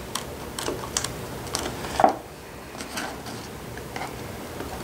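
Heat-softened glue under a JL Audio 12W7 subwoofer's upper cone giving way as a large flat-bladed screwdriver pries it up, heard as irregular small clicks and crackles.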